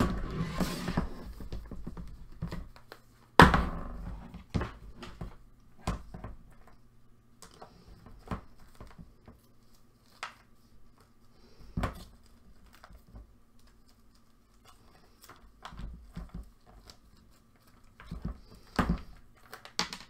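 Hands rummaging through a blue plastic storage bin of small craft items: rustling in the first couple of seconds, then scattered knocks and thunks as the bin and items are moved, the loudest about three and a half seconds in. A low steady hum runs underneath.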